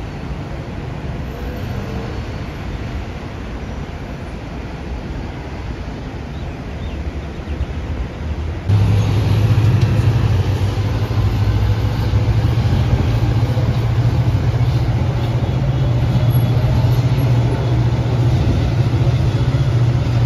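Dense traffic on a multi-lane city highway: a steady rush of tyres and engines. About nine seconds in the sound jumps louder, and a deep steady engine hum joins the traffic.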